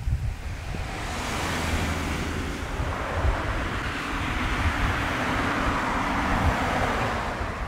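Boeing 737-800's CFM56 jet engines running: a broad rush of noise that swells about a second in and eases off near the end. Wind buffets the microphone throughout.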